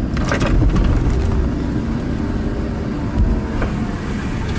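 Car interior noise while driving: a steady low rumble of engine and tyres on the road, with a few light clicks in the first second or so.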